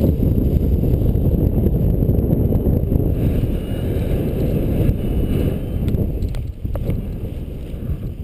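Wind buffeting the microphone of a paraglider-mounted camera as the pilot takes off and flies: a steady low rumble of rushing air, easing a little near the end.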